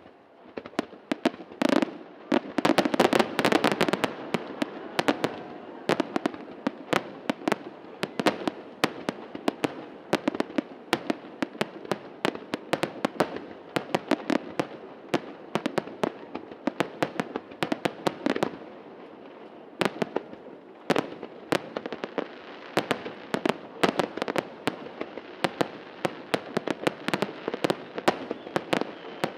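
Fireworks finale barrage: a rapid, unbroken stream of sharp bangs and crackles from aerial shells bursting, at its densest and loudest a couple of seconds in.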